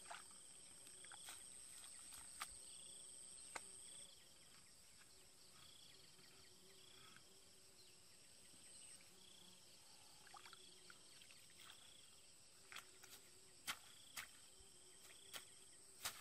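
Faint steady high-pitched insect trill with repeated short chirps, broken by a few sharp knocks of a hoe blade striking wet, muddy ground, most of them in the last few seconds.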